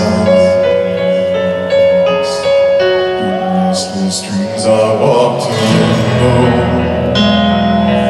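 Live concert music: a male vocalist sings a slow ballad over piano and sustained accompaniment. The arrangement swells and grows fuller about five or six seconds in.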